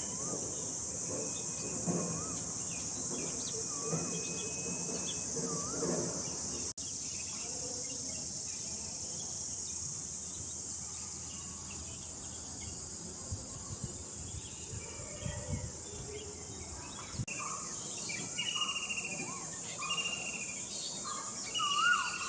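Steady high-pitched insect drone, like crickets or cicadas, with birds calling over it: a short up-and-down note repeated about every two seconds at first, then many quick rising chirps in the last few seconds.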